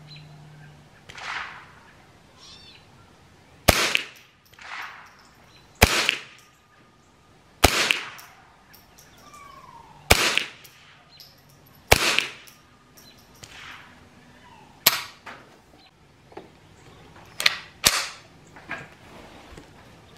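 A Ruger 10/22 .22 LR semi-automatic rifle firing CCI Subsonic 40-grain hollow-point rounds, about eight sharp shots spaced roughly two seconds apart, with two in quick succession near the end.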